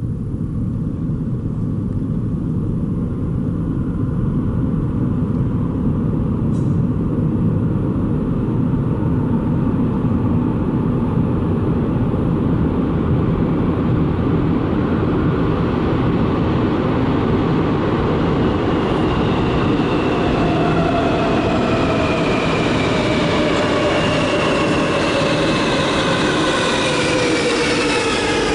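Athens Metro electric multiple-unit train approaching through the tunnel, a steady rumble that grows slowly louder. In the last ten seconds a whine of several tones falls in pitch as the train slows, and it comes out into the station at the end.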